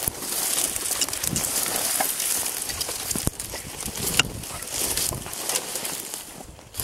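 Footsteps through dry grass and brush: dead stems rustling and crunching underfoot, with sharp twig snaps now and then.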